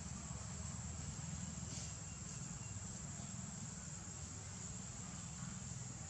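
Outdoor background noise: a steady high thin whine, like insects, over a low rumble, with no distinct event.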